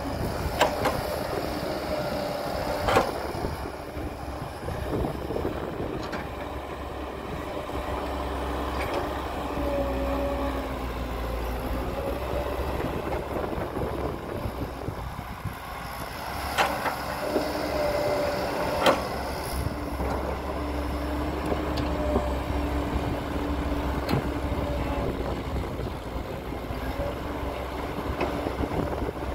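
Diesel engines of heavy earthmoving machinery running under changing load, the engine note rising and falling. A few sharp knocks break through, about a second in, near three seconds, and twice more past the middle.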